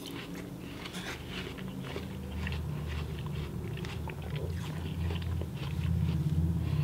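A man chewing a mouthful of watermelon: irregular short clicks and smacks of the mouth.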